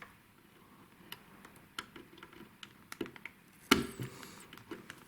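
Irregular small clicks and taps from computer parts being handled during assembly, with one louder knock nearly four seconds in.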